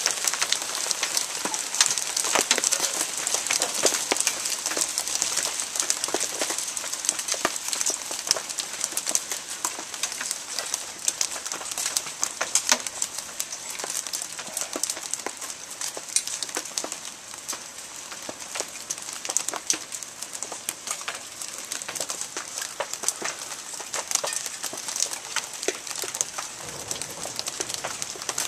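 Hail falling and pelting hard surfaces: a dense, continuous patter of sharp clicks over a hiss, easing off a little after the first half.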